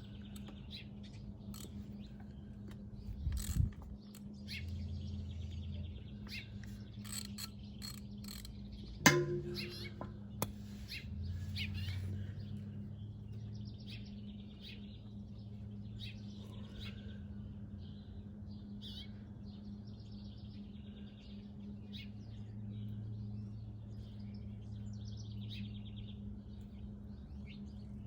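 Birds chirping over a steady low hum, with scattered light clicks and knocks. About nine seconds in comes one loud, sharp clank with a brief ring, most likely a tool on the motorcycle's oil drain bolt.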